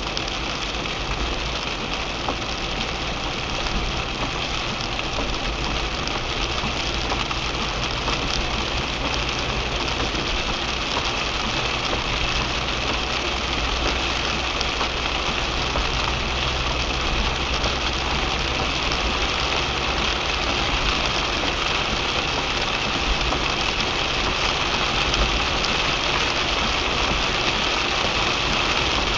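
Rain falling on a car, heard from inside the cabin: a steady hiss of rain with a low engine and road rumble underneath.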